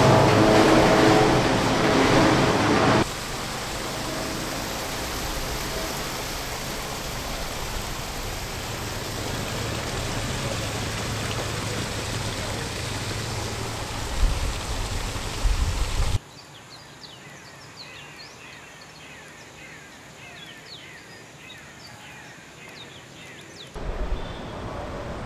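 A fibre-processing machine running with a steady hum, cut off about three seconds in by an even rushing noise. About two-thirds of the way through this drops to a much quieter background with short high chirps, and the noise rises again near the end.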